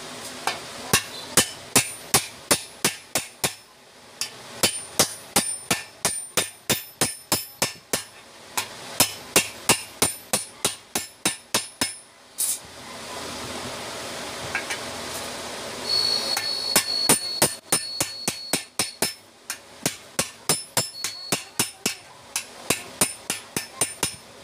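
Small ball-peen hammer peening steel rivets that fix the handle to an iron frying pan: sharp, ringing metal-on-metal strikes, about three or four a second, in runs broken by short pauses.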